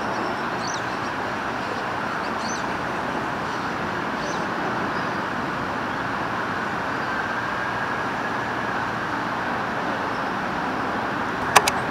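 Adelaide Metro 4000-class electric train approaching at low speed: a steady rumble and hiss with a faint thin whine about two-thirds through and two sharp clacks near the end. A few faint bird chirps in the first half.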